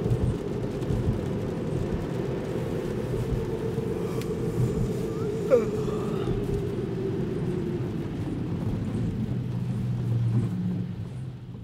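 Inside a Tesla Model 3's cabin on wet highway pavement: steady road and tyre noise with rain on the car. There is one brief high chirp about halfway through.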